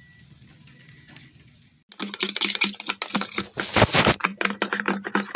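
A brush scrubbing inside a plastic coolant overflow reservoir tank: a dense run of scratchy clicks and knocks that starts suddenly about two seconds in, after faint background sound.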